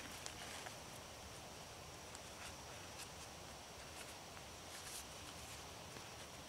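Faint rustling and small scattered clicks as a poncho's hood and cord are handled while a knot is tied off, over quiet outdoor background with a faint steady high-pitched hum.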